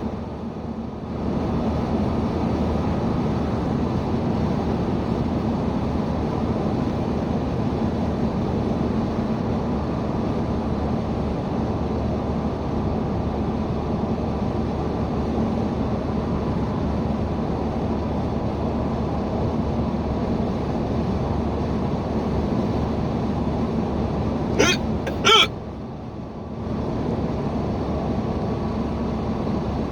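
Steady road and engine noise inside a moving car's cabin. About 25 seconds in, a person hiccups twice in quick succession.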